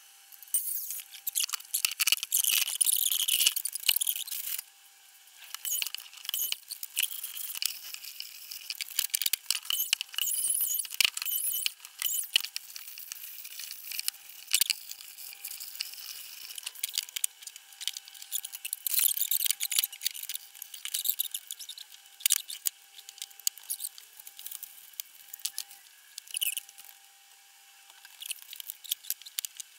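Scratchy rubbing and scraping of timber being hand-sanded and handled, with many scattered clicks and light knocks of wood.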